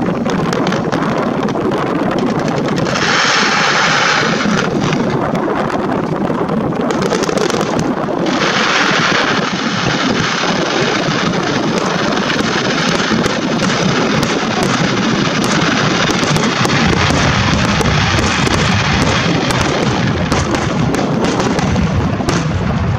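Fireworks finale: a dense, unbroken barrage of aerial shells bursting and crackling, one report running into the next. The low booms grow heavier in the last few seconds.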